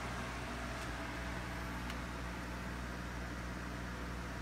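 Grow box cooling fans running steadily: an even hum with a rush of moving air.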